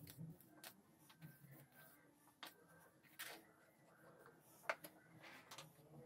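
Near silence broken by a few scattered light clicks and taps of small parts being handled at a workbench; the sharpest click comes about three-quarters of the way in.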